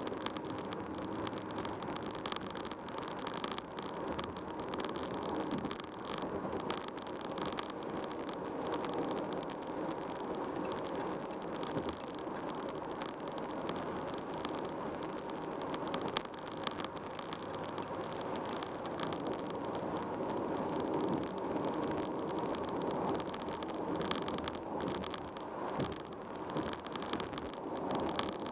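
Steady road noise from a car driving at highway speed: a continuous rush of tyre and wind noise.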